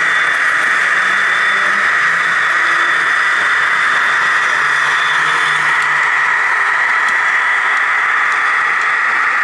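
Model railway diesel locomotives running along the layout's track: a steady whirring hiss, with a faint high whine through the first half.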